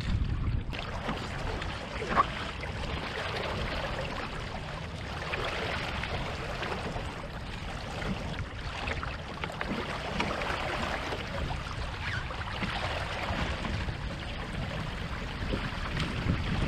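Water splashing and rushing along the hulls of a small sailing catamaran moving through the lake, a steady wash, with one sharp knock about two seconds in.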